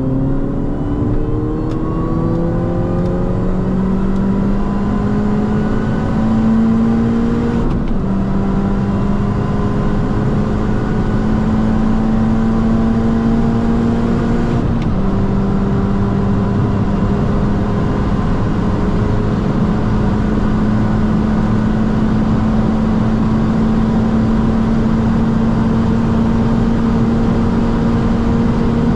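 Mini John Cooper Works GP (R53) supercharged 1.6-litre four-cylinder under full acceleration. The engine pitch climbs through each gear, with upshifts about two, eight and fifteen seconds in, then rises only slowly for the rest of the run. Steady road and wind noise lies underneath.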